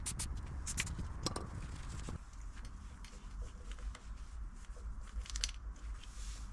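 Scattered light clicks and taps from tools and bicycle parts being handled during a repair, over a low rumble that fades about two seconds in.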